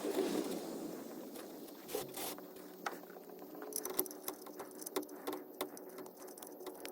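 Faint, scattered small clicks and light taps from handling the oil drain plug and wiping around the drain hole while starting the plug back into the oil pan.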